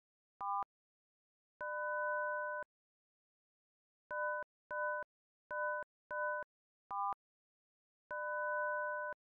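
Synthetic electronic beep sound effects of an animated drawing tutorial, sounding as arcs and lines are drawn. The sequence is a short beep, a tone about a second long, four short beeps in quick succession, a short beep of a slightly different pitch, then another second-long tone, with dead silence between.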